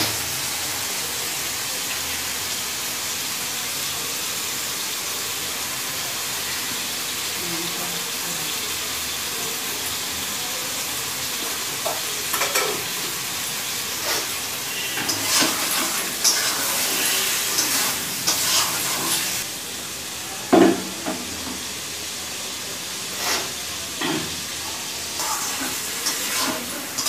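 Chicken in masala sizzling steadily as it fries in a steel kadai. From about halfway on, a metal spatula scrapes and clinks against the pan as the curry is stirred.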